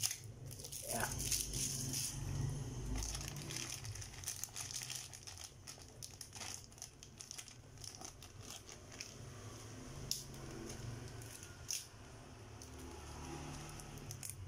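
A thin clear plastic bag crinkling and crackling as it is handled and worked open by hand, in irregular scattered crackles with a few sharper snaps.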